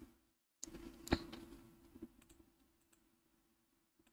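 Faint clicks from a computer keyboard and mouse over a faint steady hum. There is one sharper click about a second in and a few lighter ones around two seconds.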